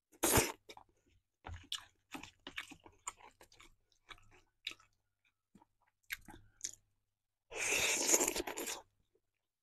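Close-up chewing and biting of a soft potato and zucchini casserole: a bite right at the start, then scattered small wet mouth clicks, and a longer, louder stretch of chewing near the end as the next forkful goes in.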